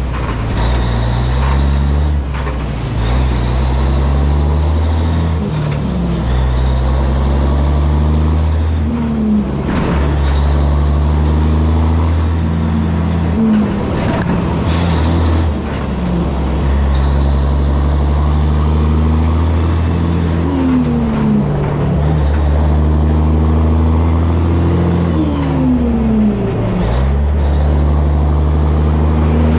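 Diesel engine of a 1984 Peterbilt 362 cabover tractor pulling away and working up through the gears, its pitch climbing and then dropping back at each shift. A short, sharp hiss of air comes about halfway through.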